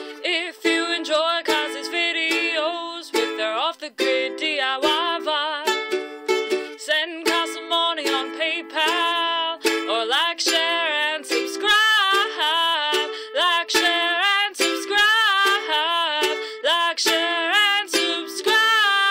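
Ukulele music, plucked strings playing on with a voice carrying a wordless tune over them.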